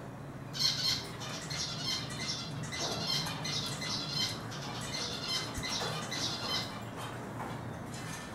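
Eurasian siskin twittering: a fast run of high, chattering notes that starts about half a second in and stops near the end.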